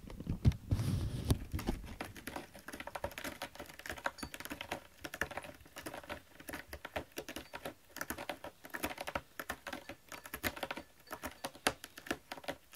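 A cat grooming its front paw close to the microphone: a long run of quick, irregular clicks and smacks, with a few low thumps in the first second or so.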